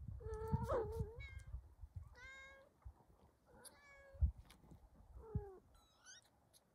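Kittens mewing: a string of short calls, some high and squeaky, a few lower and drawn out, one falling in pitch near the end. A low rumble of movement runs under the first second, and a dull knock comes about four seconds in.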